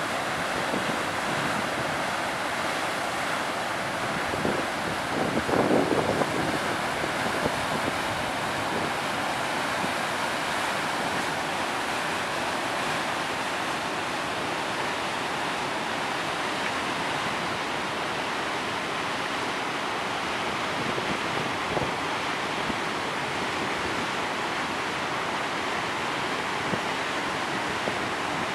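Steady roar of the Upper Tahquamenon Falls, a broad, unbroken rushing of water, with wind on the microphone swelling briefly about five seconds in.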